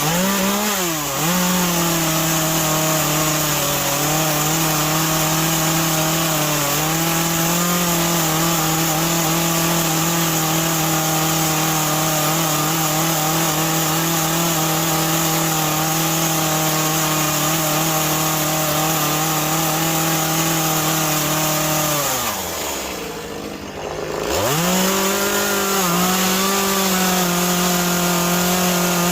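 Two-stroke chainsaw cutting into wet cedar, held at steady high revs with small dips as it scoops out wood. About 22 seconds in the revs fall away briefly, then it revs back up about two seconds later.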